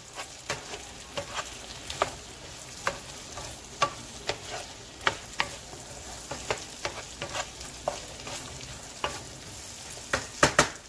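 Diced potatoes and onion frying in oil in a nonstick frying pan with a steady sizzle, while a wooden spoon stirs them, tapping and scraping against the pan at irregular intervals. A few louder knocks of the spoon come near the end.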